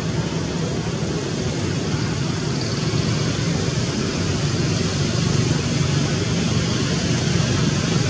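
Steady rushing background noise with a low hum underneath, even throughout, with no monkey calls or distinct sounds standing out.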